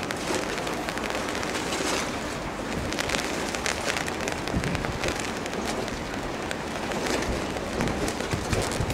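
Steady rushing outdoor noise with many small crackles throughout.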